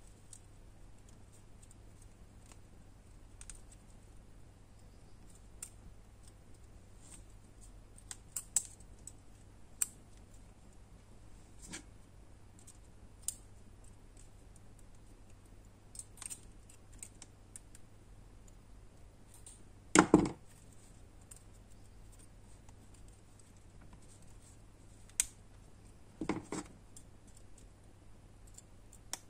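Scattered small clicks and taps of needle-nose pliers twisting thin wire around wooden craft sticks. There is a louder knock about two-thirds of the way in and another near the end.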